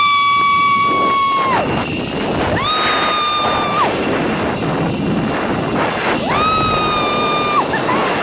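A woman screaming three long, high, held "whoo"s while riding a zip line, each sliding up at the start and down at the end, over heavy wind rushing across the microphone.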